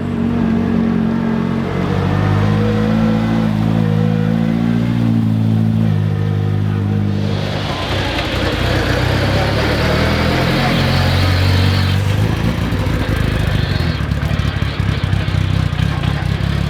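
Rally car engine running hard at high revs through the stage. About seven seconds in, a rush of tyre and road noise joins the engine and stays with it.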